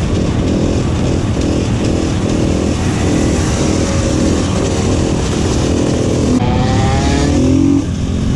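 Supermoto motorcycle engine running under way, its pitch rising and falling with the throttle, with wind rush on the microphone. About six seconds in the sound changes abruptly and the engine revs up in a clear rising pitch, dipping briefly near the end.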